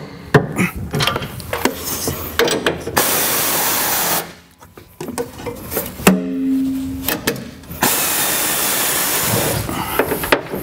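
Wrench work on the gooseneck hitch's side-plate bolts under a pickup bed, as they are tightened toward their 80 ft-lb torque: a run of sharp metal clicks and knocks, then two stretches of steady mechanical noise, with a short squeak between them.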